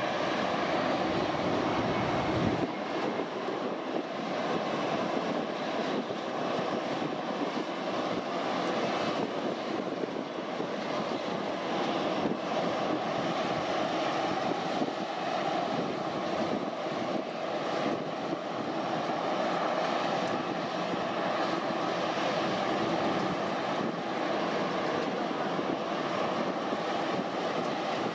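A Boeing 747-400's four General Electric CF6-80C2 turbofans running steadily at low power while the jumbo taxis: an even jet whine and rush with faint steady tones, with no spool-up for take-off.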